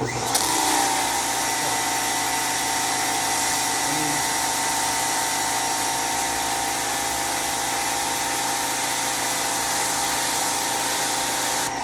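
Greenworks 2000 PSI electric pressure washer running with the spray on: a steady motor whine under the loud hiss of the high-pressure water jet. It starts abruptly at the outset and cuts off near the end as the trigger is released.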